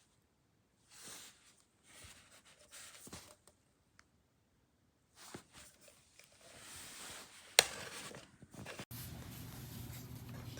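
Light rustling and scraping handling noises, with one sharp click about seven and a half seconds in; near the end a low steady hum comes in.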